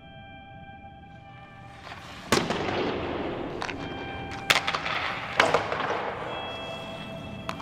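Soft held music notes, then about two seconds in a loud rushing noise starts abruptly, broken by four sharp cracks or bangs.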